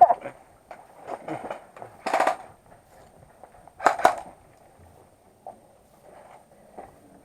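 Airsoft guns firing indoors: a quick rattling burst a little over two seconds in, then another short burst about four seconds in.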